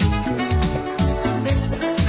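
Upbeat background music with a steady beat and a walking bass line.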